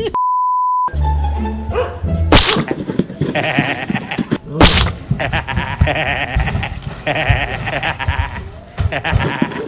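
A short steady beep, then two sharp whacks a couple of seconds apart, then a long run of repeated wavering high animal cries over music.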